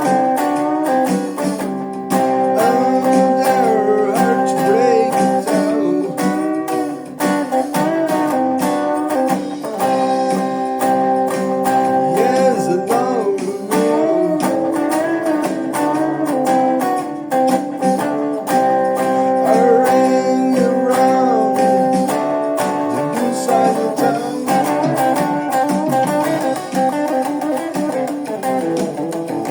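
Guitar music in a honky-tonk style: held chords with bent, wavering notes played over them, carrying on without a break.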